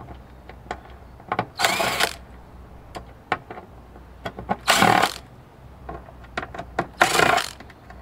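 Ryobi cordless drill/driver whirring in three short bursts of about half a second each, backing out small screws that hold a daughter board to the main circuit board. Light clicks and taps from the bit and the handled board fall between the bursts.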